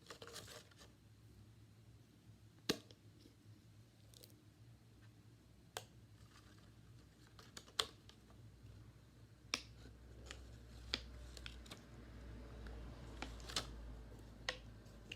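Quiet handling of plastic toy packaging: scattered sharp clicks and taps, about eight over the span, over a faint low rumble that grows louder in the second half.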